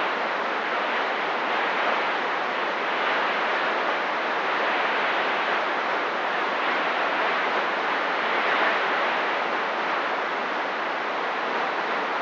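CB radio receiver static: a steady hiss from the radio's speaker with the squelch open and no one transmitting.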